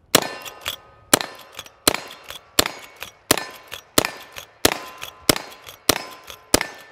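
A lever-action rifle fired rapidly from the hip: about ten shots, roughly one every 0.7 seconds. The lever clacks as it is cycled between shots.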